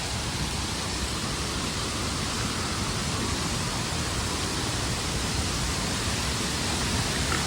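Steady rush of a monsoon-swollen mountain stream or waterfall.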